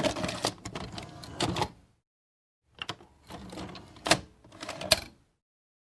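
VHS video cassette recorder's tape mechanism clicking and clunking with a short motor whir, in two runs of about two seconds each with a pause between them.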